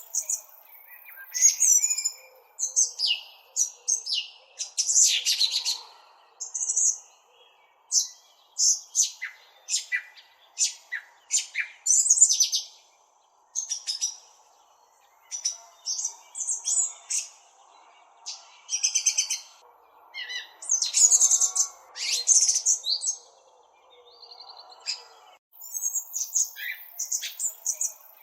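Small songbird chirping close up: quick high chirps and short trilled phrases in clusters, with brief pauses between them.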